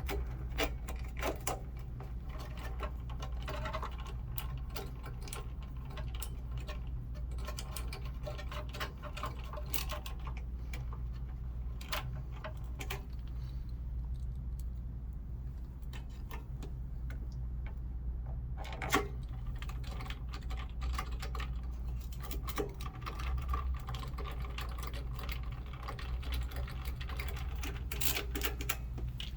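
Irregular small clicks and taps of hands handling the scooter's plastic parts, controller and wiring connectors, over a steady low background hum.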